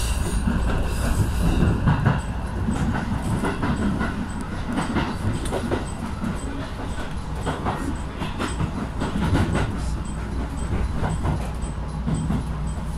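Electric train running on the rails: a steady low rumble of wheels with irregular clicks and clunks as it crosses points and rail joints.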